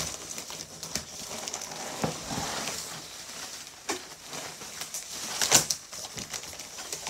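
Cardboard box flaps and packing being pulled open and handled: scraping and crinkling with scattered sharp crackles, the loudest about five and a half seconds in.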